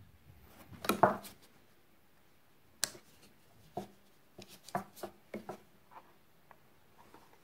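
Short clicks and light knocks from hands handling a small plastic-cased woodburning station, its rocker power switch being flipped on and its burning pen and cord. The loudest cluster comes about a second in, followed by sharp single clicks and a scatter of smaller ones.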